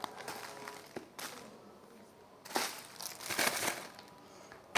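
Crinkly packaging being handled, rustling in a few bursts: briefly about a second in, then for about a second from about two and a half seconds.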